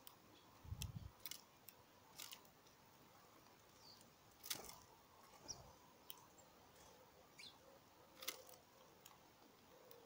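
A small seed-eating bird pecking and handling seed on a wooden feeder tray close to the microphone: scattered sharp clicks and taps, with a low thump about a second in. A few faint, short high chirps are heard among them.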